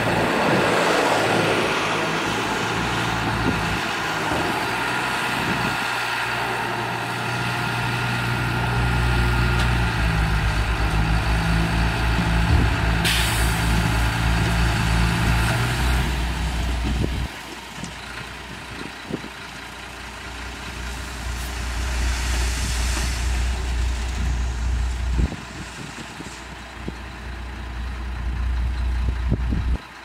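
Dongfeng dump truck's diesel engine running hard to drive the hydraulic hoist as the loaded bed tips, with soil spilling out of the tailgate. About seventeen seconds in the engine drops back and the sound falls quieter, leaving a low rumble.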